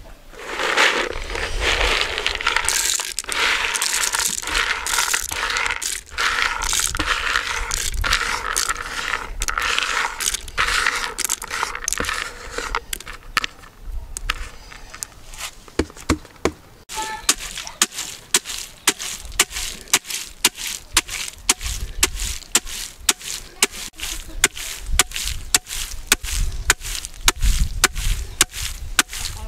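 A continuous dry, scraping rattle for about the first thirteen seconds. From about seventeen seconds in, a wooden pestle pounds groundnuts in a wooden mortar with steady strokes, about two a second.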